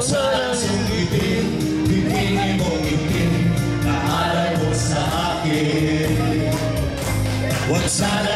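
A group of men singing a Tagalog song into microphones over backing music with held bass notes.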